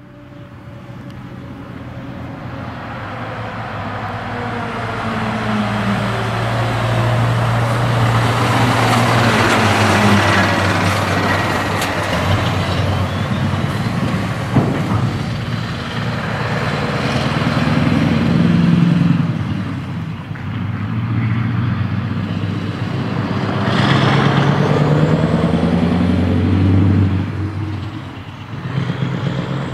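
Scania R500 V8 truck's 16-litre V8 on an open straight-through exhaust, growing louder as it approaches, then revving up and dropping back several times as it pulls away. A single sharp crack about halfway.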